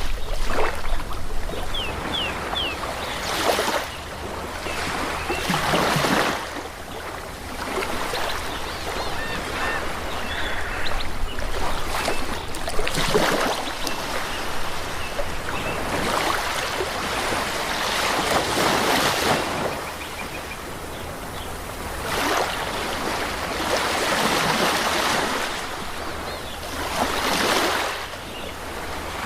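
Sea waves breaking and washing on a shore, a new swell every few seconds over a steady low rumble, with a few brief high chirps about two seconds in and again around ten seconds in.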